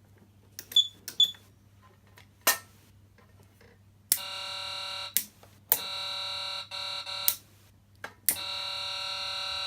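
A Patlite SAP500BZ siren amplifier sounds a steady, unwavering buzzer tone through its speaker. The tone starts about four seconds in, is cut off and restarted a few times, and then holds. A few sharp clicks come first.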